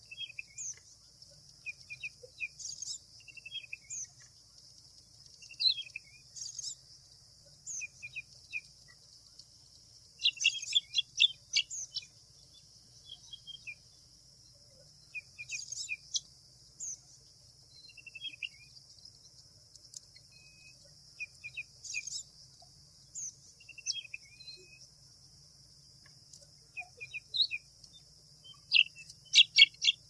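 Small songbirds giving short chirps and quick runs of high notes every second or two, busiest about a third of the way in and again near the end, over a steady high insect drone.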